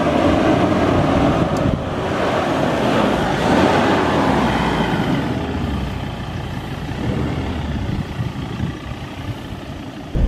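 A Ford Endeavour 3.2 SUV's five-cylinder diesel engine working as the vehicle drives through loose sand, with tyre and ground noise mixed in. It is loudest a few seconds in, then slowly fades as the vehicle moves on.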